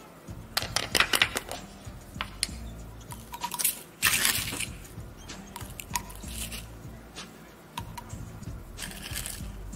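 Hands handling small cups and a small glass bottle on a plastic tray: a cluster of light clicks and taps in the first couple of seconds, then short gritty rustles about four seconds in and again near the end as sand and white powder go into the bottle from a plastic spoon. Quiet background music plays underneath.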